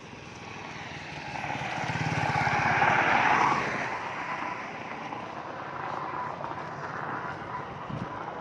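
A motor vehicle passing close by on the road: its engine and tyre noise build up, peak about three seconds in, then fade away.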